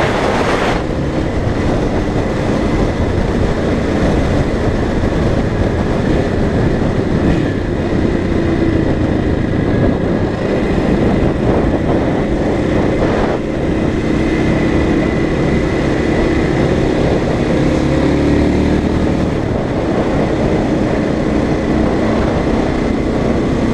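KTM enduro motorcycle engine running under way, its pitch rising and falling as the rider goes through the gears and corners, over steady wind rush on the microphone.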